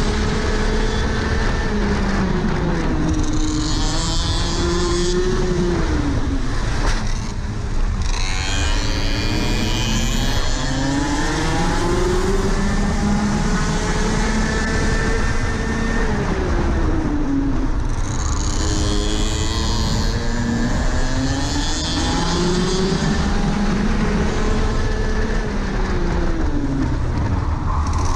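Rotax Max Senior 125 cc two-stroke kart engine at racing speed, heard from on board. Its pitch climbs as it pulls down the straights and drops sharply off throttle into the corners, three times.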